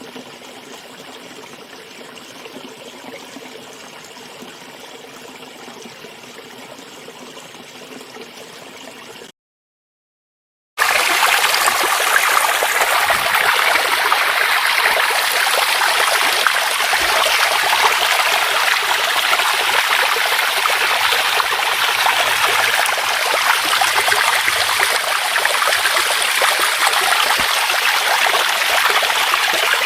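Running water: a quieter, steady stream-like flow, then a second and a half of silence about nine seconds in, followed by a much louder, steady rush of water like a river or waterfall.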